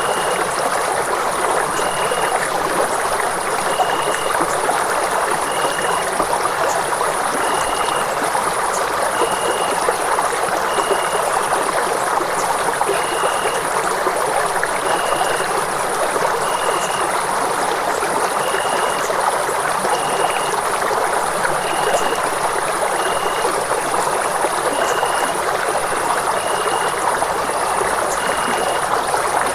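Steady running water, an even rushing flow with no change in level. A faint high tone pulses in the background about every two seconds.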